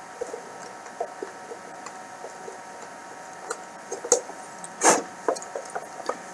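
Small scattered clicks and scraping of a screwdriver turning a tiny self-tapping screw into a plastic bill-acceptor cash box, cutting its own threads, with handling of the box and a brief louder rustle about five seconds in.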